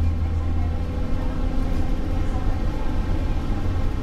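The Cummins LTA10 turbo-diesel straight-six of a Volvo Olympian double-decker bus, heard from inside the upper deck, running steadily as the bus drives along, with a deep even drone.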